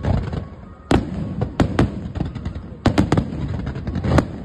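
Fireworks display: about ten sharp bangs of shells bursting, some in quick clusters about a second in and about three seconds in, over a low rumble.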